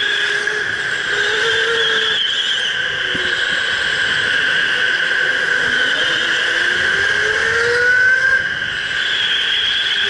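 Electric indoor go-kart running at speed, its motor giving a steady high whine; a lower whine climbs in pitch as the kart accelerates out of a corner, with a short rising squeak near the end.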